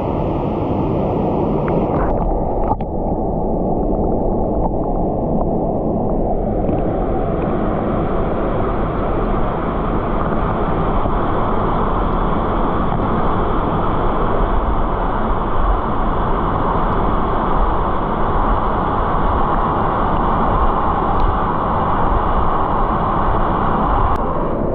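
Waterfall: a steady rush of falling water. About six seconds in, the sound grows brighter, with more hiss.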